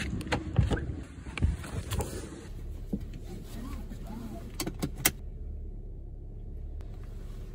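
Getting into a car: clicks and knocks from the door handle and door with clothing rustle, then a few sharp clicks from the seatbelt being pulled and latched about five seconds in, followed by a steady low hum in the car's cabin.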